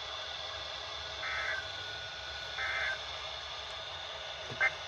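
Weather radio static hiss with two short, raspy data bursts about a second and a half apart, like the EAS end-of-message tones that close an alert broadcast, and a brief click near the end.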